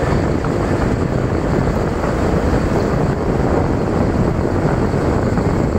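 Wind buffeting the microphone in a moving auto-rickshaw, a steady heavy rumble over the vehicle's running and road noise.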